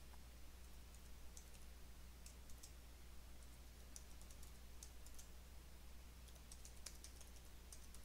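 Faint computer keyboard keystrokes, slow and irregular, coming in small clusters, over a low steady hum.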